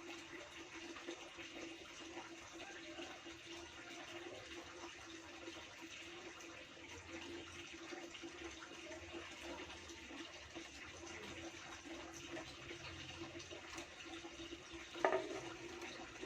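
Steady rushing, water-like background noise with a low steady hum, and one sharp knock near the end.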